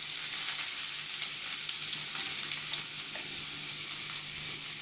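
Freshly added chopped onions, green chillies, ginger and garlic sizzling in hot oil in a nonstick wok, a steady hiss with faint scattered crackles.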